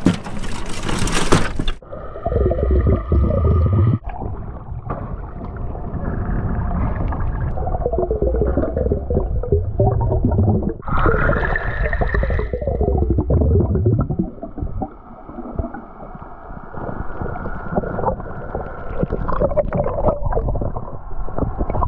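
Underwater sound picked up by a camera below the surface: muffled low rumbling and gurgling water, with whining tones that rise and fall. About two seconds in, the sound changes from open-air splashing and wind to this dull, cut-off underwater sound.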